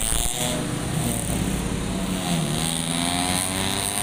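Road traffic passing close by: car engines running as vehicles go past, their tone sliding up and down.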